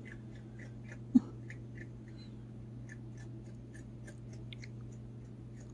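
A small possum chewing its food: faint, crisp little clicks a few times a second over a steady low hum, with one short thump about a second in.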